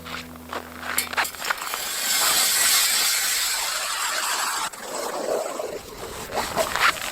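Snow being dug and shovelled in deep snow: irregular crunching and scraping, with a longer hissing rush in the middle that cuts off suddenly.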